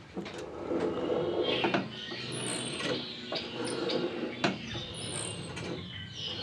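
Light clicks and creaks from a Land Rover's throttle linkage (pedal, return spring, cable and carburettor lever) being worked, with raucous birds chattering and chirping in the background.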